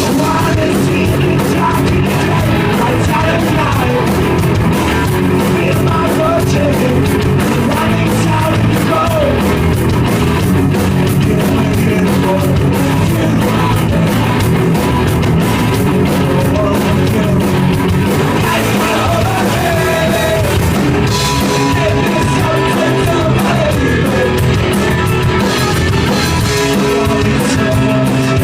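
Punk rock band playing live: electric guitars, bass and drums, loud and steady, with shouted singing over them.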